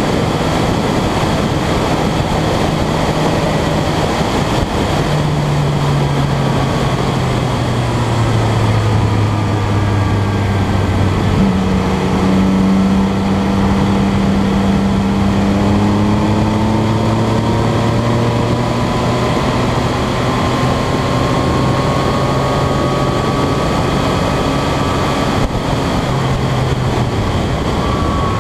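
Motorcycle riding at speed, its engine running under a heavy rush of wind on the onboard microphone. The engine note shifts in pitch several times: about five seconds in, about eleven seconds in and near the end.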